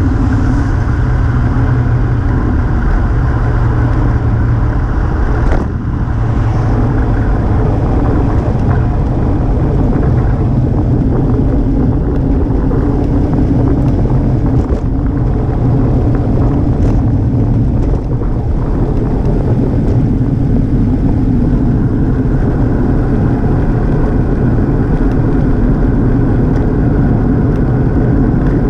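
Loud, steady wind rumble on an action camera's microphone from a fast road-bike descent. A single knock about five and a half seconds in.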